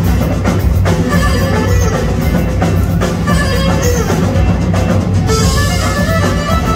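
Live Greek dance music from a band: drum kit and a large double-headed drum beaten with a stick keep a steady beat under keyboard. The sound fills out about five seconds in.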